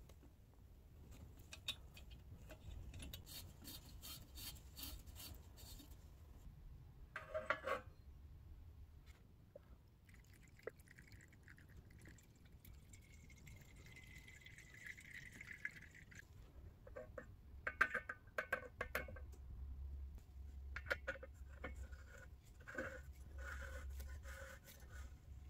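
Liquid poured through a metal funnel into a small brass stove tank, the gurgle rising in pitch as the tank fills. Before and after it come small metallic clicks and taps as brass fittings and the filler cap are handled and screwed on.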